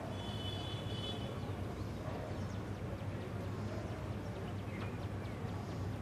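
Steady rushing of a waterfall, with a high bird call in the first second and a few faint chirps later.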